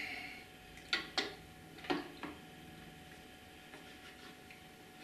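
Sound-lamp holder being pushed back into the optical sound head of a Bauer B 8 B cinema projector: four small clicks and knocks in the first two and a half seconds, then quiet with a faint steady hum.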